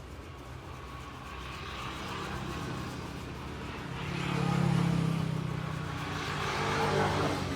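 A motor vehicle passing on the street, its engine swelling to its loudest about halfway through and fading, with a second swell near the end.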